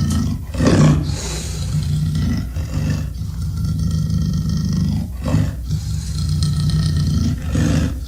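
Made-up Tarbosaurus dinosaur roar sound effect: a deep, rumbling growl that runs continuously, swelling into louder roars about a second in, around five seconds in and near the end.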